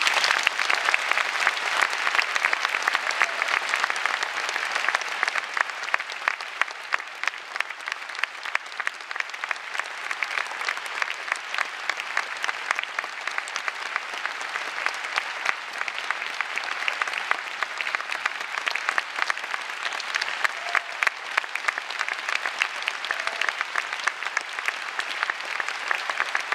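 A large theatre audience applauding. Dense clapping bursts in as the orchestra stops, loudest in the first few seconds, then holds steady.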